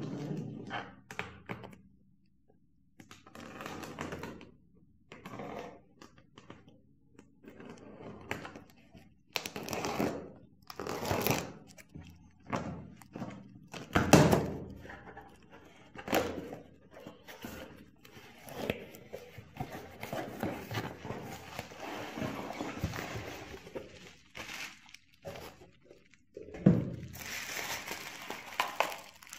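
Clear packing tape being peeled and torn from a cardboard shipping box, with the box opened and handled in a run of knocks, scrapes and thumps, the loudest about halfway through. Near the end, bubble wrap crinkles as the wrapped device is lifted out.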